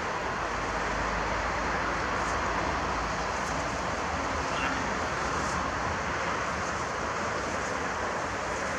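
Steady road-traffic noise, an even rumble and hiss that does not change.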